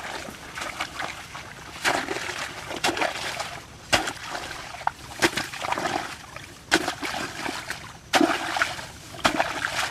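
Water splashing and sloshing in a run of sharp splashes about a second apart, over a steady watery hiss.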